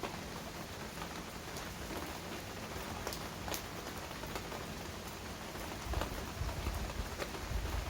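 Heavy rain falling steadily, with scattered individual drops striking close by. A low rumble builds underneath about six seconds in.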